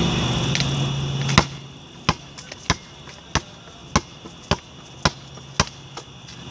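Basketball dribbled, bouncing about once every 0.6 seconds, with a harder first bounce about one and a half seconds in. Before the bouncing there is a steady low hum that cuts off suddenly.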